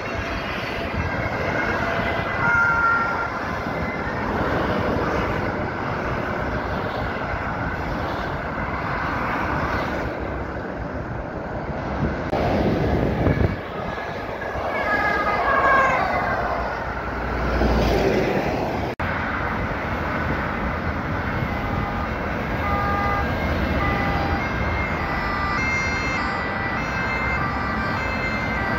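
Motorway traffic noise of tyres and engines, with vehicles passing close by, louder about halfway through. An emergency vehicle's siren sounds over it, switching back and forth between two pitches.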